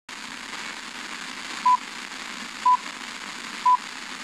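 BBC Radio 4's Greenwich Time Signal: three short pips a second apart on one high tone, counting down to the top of the hour. They are heard through steady hiss from a weak, long-distance FM reception of the 93.5 MHz signal.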